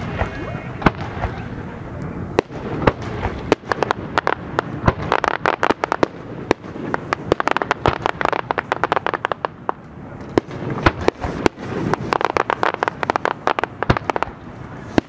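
Aerial fireworks shells bursting and crackling: a few separate bangs in the first three seconds, then dense runs of rapid crackling pops from about four seconds in, easing briefly around ten seconds before another dense run.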